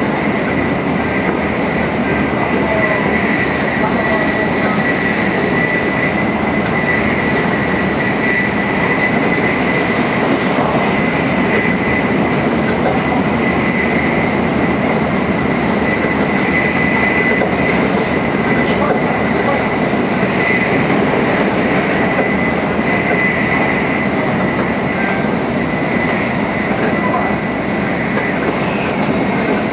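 Tokaido Shinkansen Nozomi bullet train running at high speed: a steady rumble of wheels on rail and rushing air, with a constant high-pitched whine.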